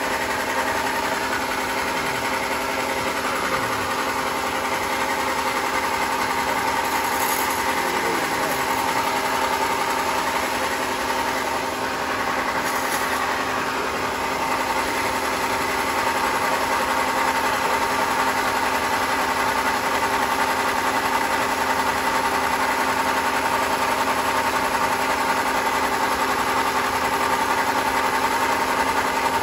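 Homemade band sawmill running steadily, a machine hum with several steady tones that grows a little louder about halfway through.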